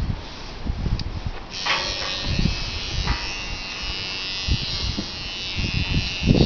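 Electric clippers switch on about a second and a half in and buzz steadily, with irregular low thuds underneath.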